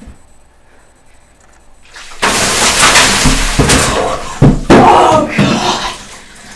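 A bucket of ice water dumped over a person: a sudden loud splash of water and ice about two seconds in, then her cries and gasps at the cold, with a couple of sharp knocks midway.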